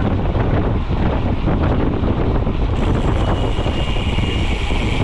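Wind buffeting a helmet- or bike-mounted action camera's microphone while riding a mountain bike at speed, as a steady rumbling rush. About three seconds in the hiss turns brighter and a faint thin whine joins it.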